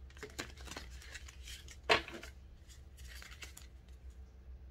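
Tarot cards being handled and shuffled: a run of quiet papery flicks and rustles, with one louder snap about two seconds in.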